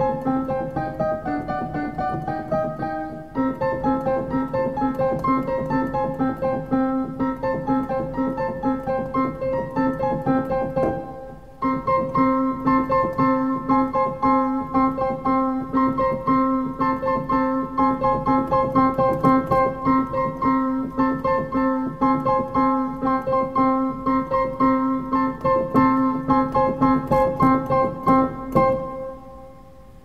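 Background piano music with a steady pulse of repeated notes. It dips briefly about eleven seconds in and fades out at the very end.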